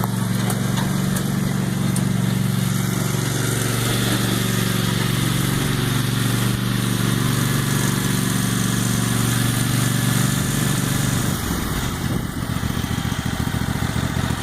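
Riding lawn mower engine running steadily while it tows a trailer; about eleven seconds in the engine note drops and goes rougher as it is throttled down.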